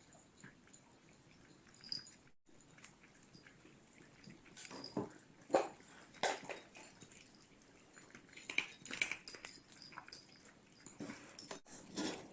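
Cats eating, with irregular short chewing and crunching sounds, busier in the second half.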